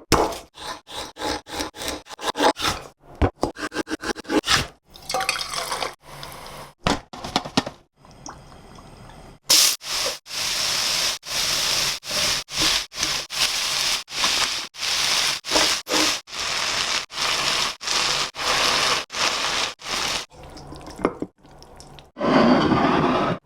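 Food-preparation sounds in quick edited cuts: first a fast run of short sharp taps and clicks, then sprats frying in a pan with a steady sizzle, chopped up by many brief breaks.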